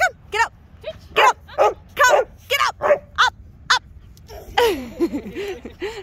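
A kelpie giving a rapid run of about a dozen short, high-pitched yips that stop about four seconds in. A young child's voice follows near the end.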